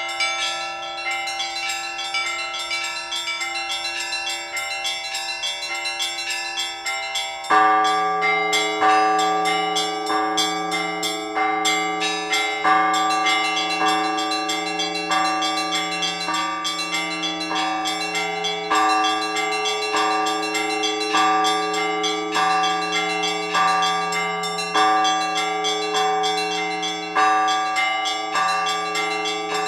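Orthodox church bells ringing a peal by hand: small bells chime over a humming lower bell. About seven and a half seconds in, the ringing turns louder and fuller, with the deeper bells struck in a steady rhythm under the small ones.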